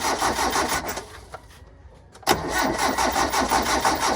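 A hard-starting gasoline engine being cranked over by its starter motor, with a fast, even churning rhythm. The cranking stops about a second in and starts again sharply a little after two seconds. It does not start because no gasoline is being pumped up to the engine.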